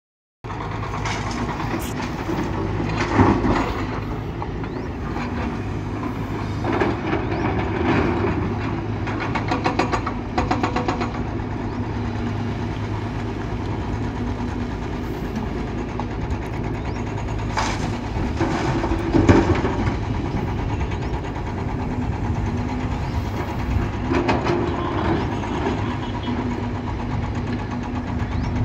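Tracked hydraulic excavator at work: its diesel engine runs steadily, with intermittent clanks and rattling. The loudest knocks come about three seconds in and again about two-thirds of the way through.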